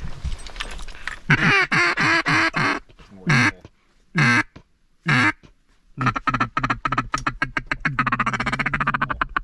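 Duck call blown at close range. It starts with a quick descending run of about five quacks, then three single quacks about a second apart, then a fast chattering string of short notes to the end.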